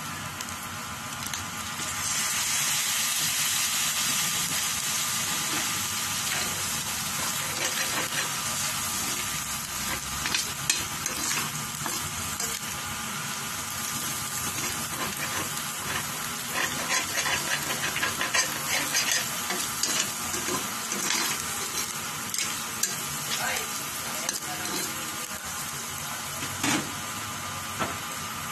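Ground meat frying in a stainless steel skillet, a steady sizzle that gets louder about two seconds in. Through the second half a metal spoon scrapes and clicks against the pan as the meat is stirred.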